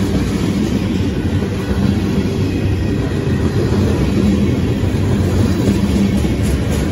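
Steady low rumble of ethanol tank cars on a freight train rolling past close by, their steel wheels running on the rail.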